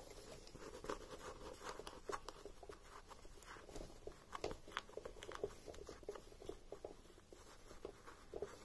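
Faint, irregular rustling and small clicks of fabric being handled and eased off the needles of a smocking pleater.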